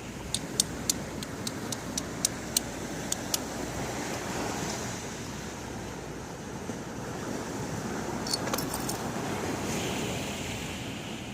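A run of about a dozen sharp, light clicks in the first few seconds and a few more near the end, over a steady wash of seaside wind and surf noise.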